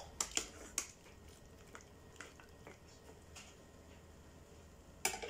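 Metal ladle clinking lightly against the cooking pot while broth is scooped out, a few sharp clicks close together in the first second and fainter ones spaced out after. A short louder noise comes near the end.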